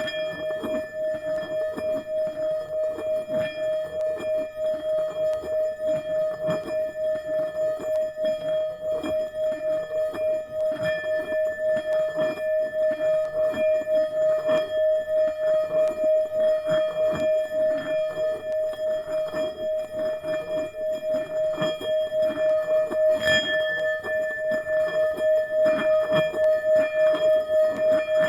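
Tibetan singing bowl sounding one steady, sustained ringing tone that pulses in loudness, with higher overtones above it. Fresh strikes sound about eleven and twenty-three seconds in.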